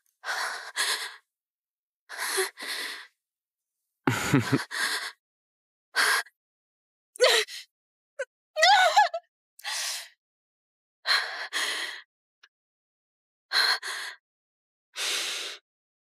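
A person breathing out loud in short gasps and sighs, about a dozen breaths each under a second, with dead silence between them. One breath near the middle carries a brief wavering moan.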